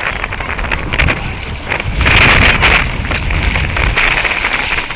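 Sea water sloshing and splashing close to the microphone, with wind buffeting it and many small splashes ticking; a louder rush of water comes about two seconds in.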